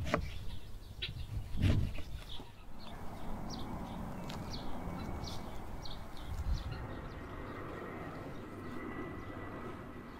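A kitchen knife knocking twice through a lemon onto a wooden cutting board, then soft rustling and handling as gloved hands work lemon slices into a salt-coated fish. Birds chirp in the background, most often in the first half.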